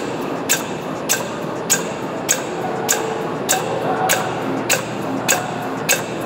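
Sun Centre SCSP600 DR bag-making machine running, with a sharp click at every machine cycle, about every 0.6 seconds, over a steady mechanical hum.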